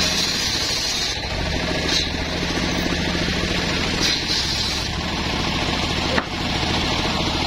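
An engine running steadily, with a few short knocks of heavy timber beams being shifted, the sharpest about six seconds in.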